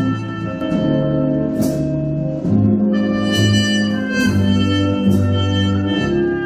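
Big band playing a slow swing number: a trumpet with a metal mute plays over sustained horn chords and a low line that steps about every half second. A cymbal is struck roughly every second and a half.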